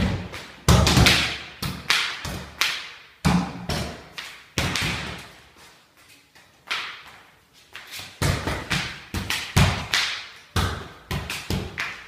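Football being juggled: a quick, uneven run of kicks and touches on the ball, each a sharp thud that rings on in a bare, echoing room, with a lull of a couple of seconds about halfway through.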